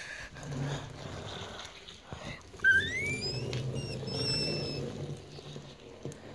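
A person's voice imitating a jet engine spooling up for takeoff: a low hum, then a whistling whine that rises in pitch about two and a half seconds in and is held high for about two seconds.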